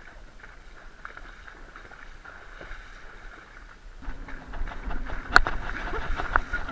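A horse's hooves splashing and sloshing through a water-logged, muddy track, with scattered small knocks. From about four seconds in, wind rumbles on the microphone and the splashes get louder, with one sharp click about a second later.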